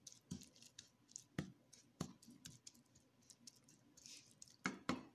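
Spatula knocking and scraping against a pan while stirring grated carrots: scattered light clicks, a short scrape about four seconds in, and a quick cluster of louder knocks near the end.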